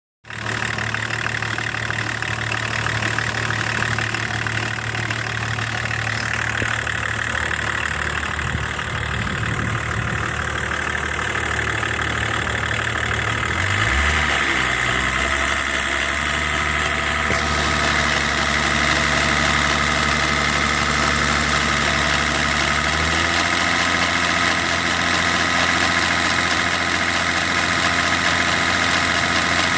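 BMW M51 turbo-diesel engine running near idle, with an extraneous noise in it that the owner is trying to find. Its note shifts about halfway through and again later on.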